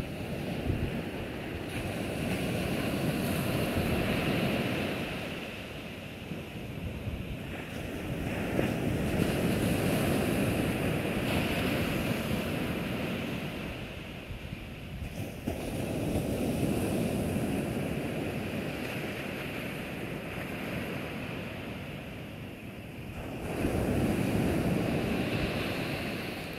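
Small ocean waves breaking and washing up a flat sandy beach, the surf swelling and fading about four times, every six or seven seconds.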